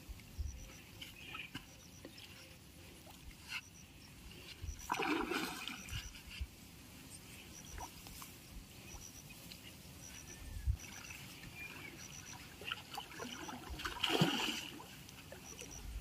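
River water splashing twice, once about five seconds in and again near the end, among a few small knocks.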